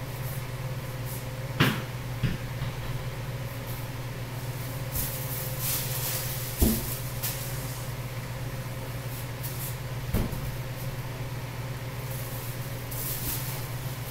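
Sofa parts and cardboard packaging being handled: a few scattered knocks and thumps, with stretches of rustling, over a steady low hum.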